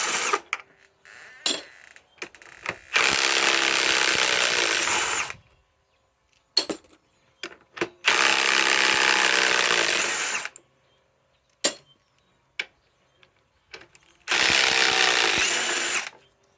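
Ryobi PSBIW25 cordless compact impact wrench running on fasteners in a block of wood, in three bursts of about two and a half seconds each, with short clicks between the bursts.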